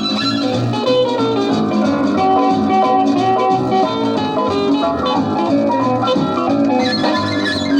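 Instrumental passage of a 1953 boogie dance-band record played from a 78rpm disc, with a steady beat and a held melody line.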